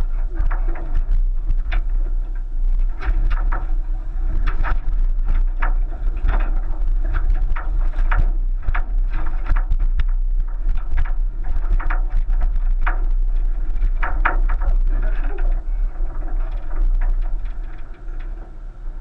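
1999 Subaru Forester driving over a rutted dirt track, heard from a roof-mounted GoPro: a steady low rumble with frequent short knocks and rattles as it crosses rough ground, growing quieter near the end.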